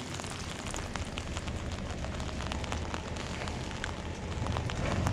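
Rain falling on an umbrella held overhead: a steady hiss with many small, irregular drop ticks on the canopy.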